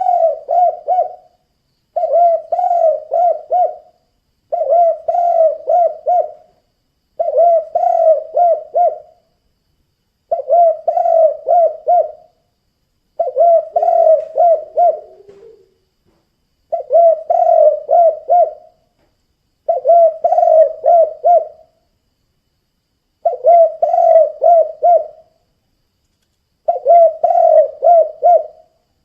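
Spotted dove (tekukur) cooing its 'kuk 2' call. It gives phrases of several quick coos, each phrase about two seconds long, repeated about ten times with short pauses between.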